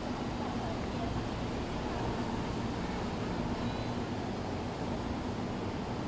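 Steady outdoor background rush with a faint low hum, even in level throughout.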